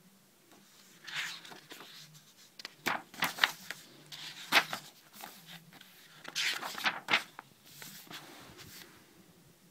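Paper pages of a sketchbook being turned and handled: a run of rustles and crisp paper flicks, the sharpest about four and a half seconds in.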